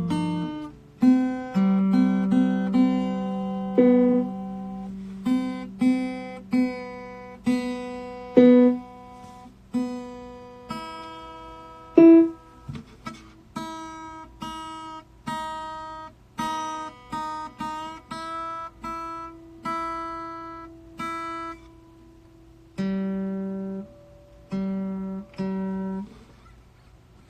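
Acoustic guitar playing a slow instrumental passage of a song: single picked notes and chords, each ringing and fading away.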